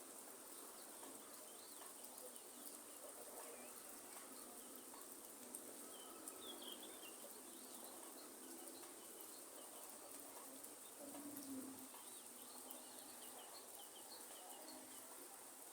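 Faint rainforest ambience: scattered high bird chirps over a soft, steady hiss, with a low bird call about eleven seconds in.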